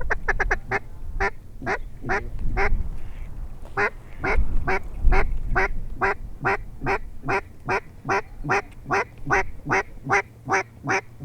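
Mallard hen quacks: a quick run of short quacks at the start, then after a short pause a long, even series of quacks, nearly three a second, over a low rumble of wind.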